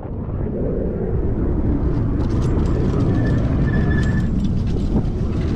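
Wind rushing over the microphone and tyre noise as a Himiway electric fat-tire bike is ridden along. From about two seconds in, a crackle of small ticks from the tyres rolling over sand and grit joins it.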